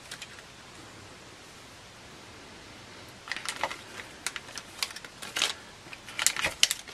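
Plastic zip bags crinkling and rustling as a hand sorts through small parts in a cardboard box, in irregular bursts starting about three seconds in after a stretch of faint room hiss.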